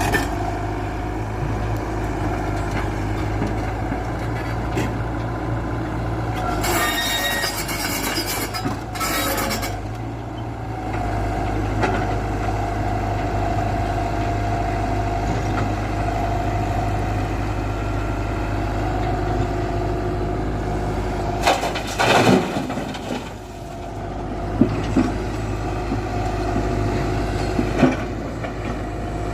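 Tata Hitachi 120 hydraulic excavator's diesel engine running steadily, with two loud hissing bursts, the first about a quarter of the way in and the second about three quarters in, and a few sharp metallic knocks near the end.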